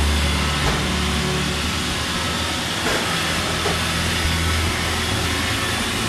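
iRobot Roomba robot vacuums running, their motors and brushes making a steady whirring hiss with a low hum, and a few light knocks.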